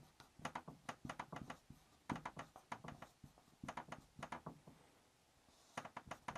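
Felt-tip marker writing and drawing on a wall-mounted paper chart: faint quick scratches and taps in short runs with pauses between.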